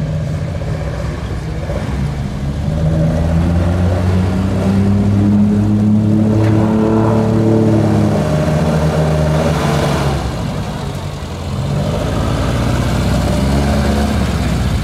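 Car engines running as lowered cars drive slowly past. One engine note swells from about two seconds in, holds, and dies away around ten seconds. A second engine note picks up near the end, as a vintage Datsun Sunny pickup rolls by.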